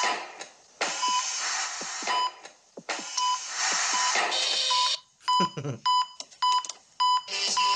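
Cartoon hospital heart monitor beeping about once a second over a rhythmic whooshing hiss. About five seconds in the beeps speed up to two or three a second, and music starts near the end.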